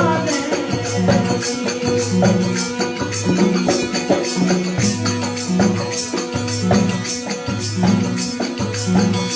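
Instrumental break of a Rajasthani folk bhajan: a low drum-like beat repeating about once a second under fast, dense hand-percussion strokes, with a short instrumental melody weaving above.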